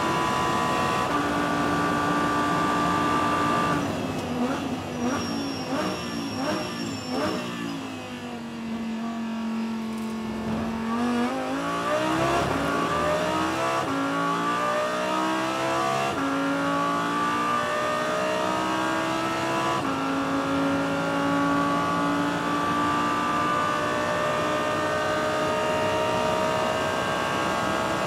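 Audi R8 LMS GT2's V10 engine heard from inside the cockpit. It runs flat out near 8,000 rpm in top gear, then steps down through a run of quick downshifts to a low, steady note. It then climbs back up through the gears at full throttle, each upshift dropping the pitch before it rises again.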